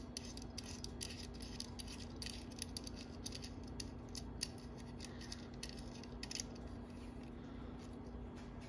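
A nut being unscrewed from the threaded nipple of a ceiling-fan light kit while the metal kit is handled: a quick run of light metallic clicks and ticks that thins out about two-thirds of the way through. A steady low hum runs underneath.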